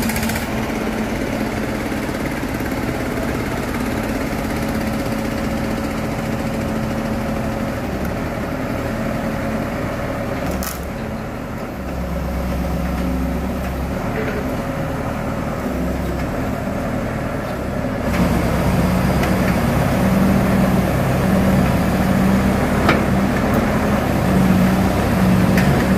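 Kato hydraulic excavator's diesel engine running steadily. There is a sharp click about ten and a half seconds in, and the engine grows louder from about eighteen seconds in.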